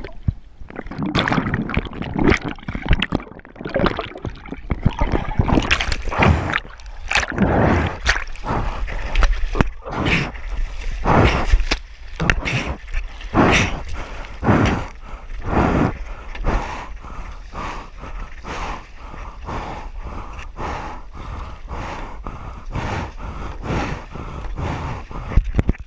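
Paddle strokes and water splashing around a stand-up paddleboard, heard close to the water. Loud, irregular splashes give way after about 16 seconds to a steadier run of quick strokes.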